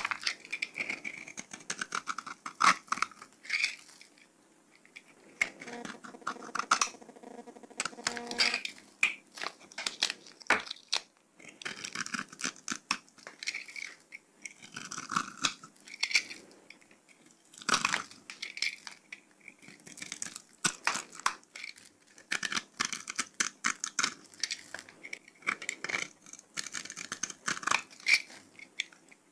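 Utility knife blade cutting into bars of dry soap, shavings and scored soap cubes crunching and crumbling off in runs of short crisp strokes with brief pauses between.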